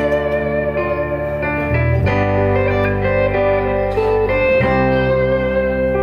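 Band music with guitars, bass guitar and keyboard, the melody held in long sustained notes over a bass line that changes every couple of seconds; no singing.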